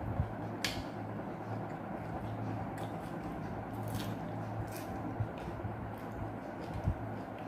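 Close-up mouth sounds of eating: wet chewing of spaghetti and squid, with a few short sharp smacks or clicks scattered through, over a steady low hum.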